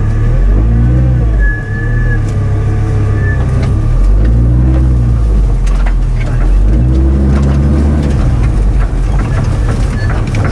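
Off-road 4x4's engine revving up and down in several surges as it crawls over rough forest ground, with knocks and rattles from the vehicle jolting over bumps.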